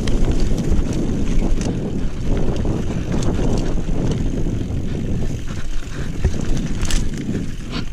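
Wind rumbling over the camera microphone during a mountain bike descent, with scattered clicks and clatter from the Trek Remedy 7 mountain bike over rough ground.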